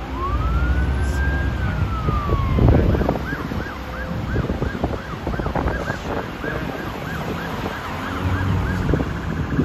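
Emergency vehicle siren: one slow wail rising and falling, then about three seconds in switching to a rapid yelp, about three cycles a second. Underneath runs the rumble of highway traffic.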